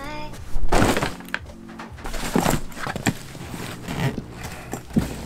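Background music with a steady melody, over a soft-sided suitcase being packed and shut: several dull thumps of clothes and the lid going down, the loudest a little under a second in.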